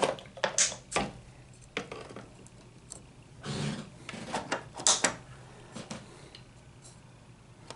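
Irregular clicks, taps and light clatters of small tools and parts being handled during the repair of a model locomotive, with a short rubbing sound about three and a half seconds in.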